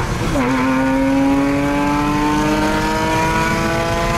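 Porsche Cayman S flat-six engine through a full IPE exhaust from the headers back, loud and heard from inside the cabin. Its note dips about a third of a second in, then climbs steadily as the car accelerates.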